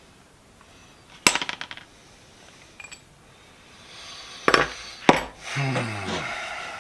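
Metal parts of a cast-iron bench vise being handled on a workbench: a quick rattle of clinks about a second in, a couple of light clicks, then two hard knocks followed by a ringing, scraping sound that falls in pitch and fades.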